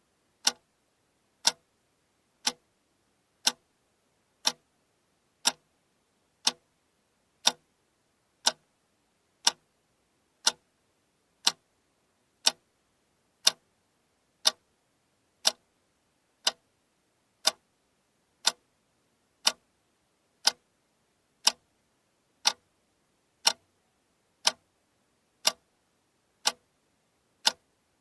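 Alarm clock ticking: one sharp, even tick each second, with nothing else between the ticks.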